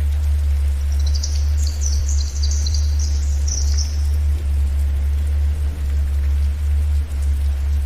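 A steady low drone, the theta-wave tone of a relaxation track, under forest ambience with a faint hiss. About a second in, a bird sings a high twittering phrase that lasts some three seconds.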